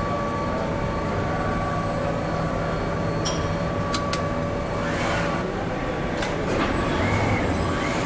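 Assembly-line ambience: a steady hum and whir of production machinery, with a few sharp clicks of metal parts about three and four seconds in and again around six seconds.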